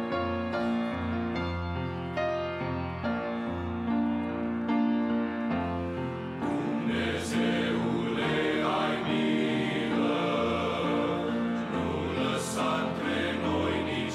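A grand piano plays a hymn introduction, and about six seconds in a men's choir comes in singing in Romanian with the piano accompanying.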